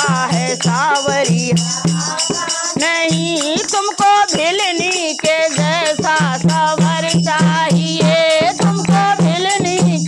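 Women singing a Hindi devotional bhajan to a dholak, its low strokes keeping a steady rhythm, with a hand-held shaker rattling in time.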